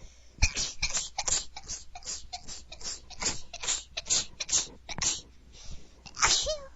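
A woman's rapid run of tiny, stifled, bunny-like sneezes and sniffs: short breathy bursts about two to three a second, with a fuller voiced sneeze near the end.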